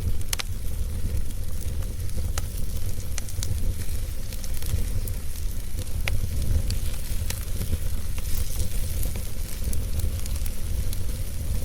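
Wood fire burning, with a steady hiss and crackle, a low rumble underneath and scattered sharp pops. The strongest pops come about a third of a second in and about six seconds in.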